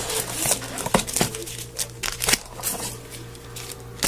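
Plastic wrapper of a 2011/12 Certified trading card pack crinkling and tearing open in a series of irregular rustles, the loudest about a second in and again past the two-second mark.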